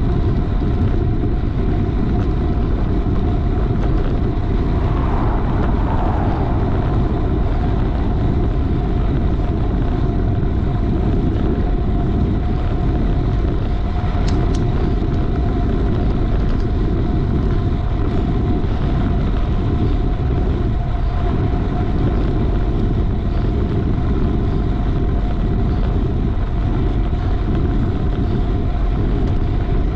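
Steady wind rush and road noise from a bicycle ridden at racing speed, the wind buffeting the microphone, with a brief louder swell about five seconds in.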